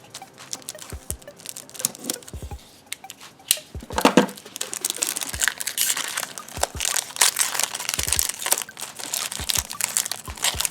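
Foil trading-card pack wrapper crinkling and tearing as it is worked open by hand, a dense crackle that gets louder about four seconds in. The wrapper is hard to open, tearing unevenly.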